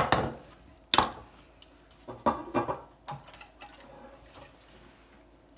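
Glass clip-top jars being lifted and set down in a ceramic sink, knocking and clinking against the sink and each other: a sharp knock at the start and another about a second in, then a scatter of lighter clicks and clinks.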